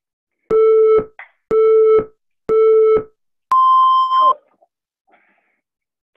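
Interval workout timer counting down: three short beeps, one a second, then a higher, longer beep that marks the start of the next work interval.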